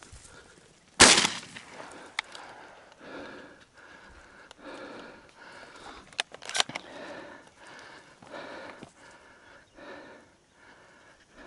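A single shotgun shot about a second in, by far the loudest sound, with a short ringing tail. A dog then pants rhythmically, and there are a couple of sharp clicks near the middle.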